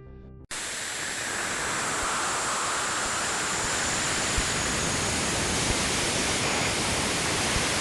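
Steady static-like hiss, a space recording converted to sound, cutting in abruptly about half a second in, with a faint high whistle above it that sinks slightly.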